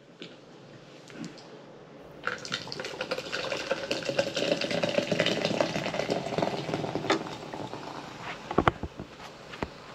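Fresca soda being poured into a glass and fizzing, starting about two seconds in and lasting about six seconds. A few sharp knocks follow near the end.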